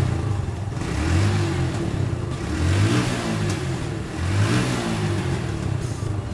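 Motorcycle engine heard at the exhaust silencer, blipped three times from idle, each rev rising and falling back. The engine is still misfiring even with its secondary air valve washed and refitted, which the mechanic puts down to a faulty secondary air valve that needs replacing.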